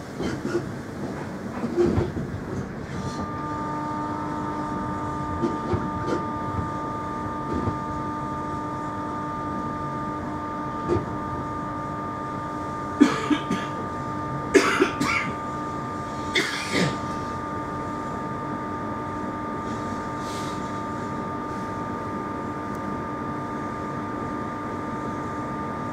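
Cabin of a London Underground Jubilee Line 1996 Tube Stock train running along open track: a steady rumble, with a steady whine coming in about three seconds in. A few sharp knocks stand out in the middle.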